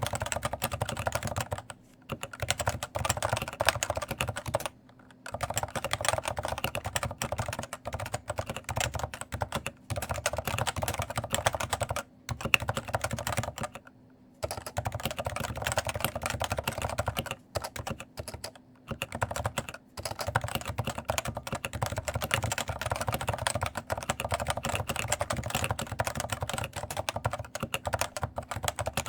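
Continuous fast typing on a stock Cooler Master NovaTouch TKL keyboard, whose Topre electrostatic capacitive switches carry light Cherry-compatible keycaps that rattle heavily. The keystrokes come in long runs broken by several brief pauses.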